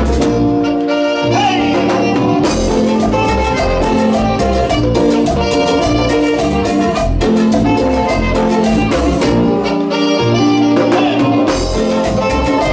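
Live cumbia band playing an instrumental passage with saxophones, accordion, bass and hand percussion over a steady dance beat. The bass drops out briefly twice, about a second in and again near ten seconds.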